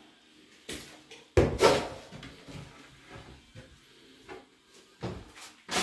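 Vanity cabinet doors being opened and handled: sharp knocks and clicks, with a loud knock a little over a second in and another near the end, and lighter clicks between.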